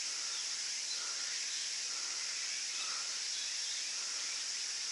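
Steady, high-pitched insect chorus, with faint short chirps about once a second.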